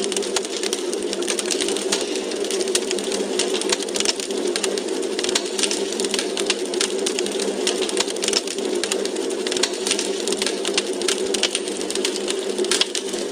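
Wood fire in a fireplace crackling: dense, irregular sharp pops and snaps over a steady rushing background.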